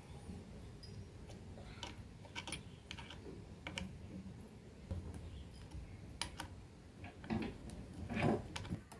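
Light, irregular clicks and taps of an Allen key and small metal parts as the bolts of a jigsaw blade guide's roller bearings are adjusted, with a couple of louder knocks near the end.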